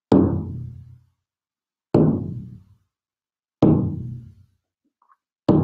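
Large frame drum with a rawhide head struck in a slow, steady beat: four deep strikes about two seconds apart, each ringing out for about a second before the next.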